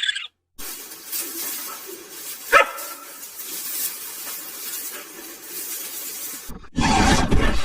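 A dog barks once, short and sharp, over steady background hiss. Near the end a loud, rough sound starts abruptly.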